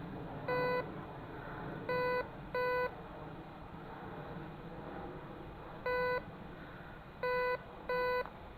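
Metal detector giving six short, identical beeps of one steady tone at irregular intervals as the search coil passes back and forth over a buried metal target, signalling a find.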